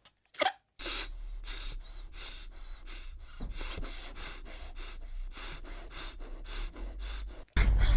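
Foley heavy breathing made with a balloon: quick, ragged breaths of air, about four a second, over a low hum.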